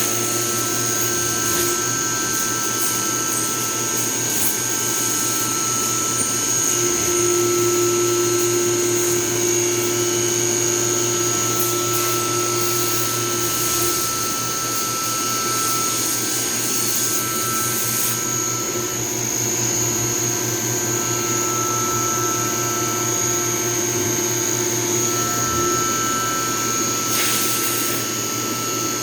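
CNC milling machine cutting under flood emulsion coolant: a steady high spindle whine over a constant hiss and low hum, with cutting tones that come and go as the cutter works.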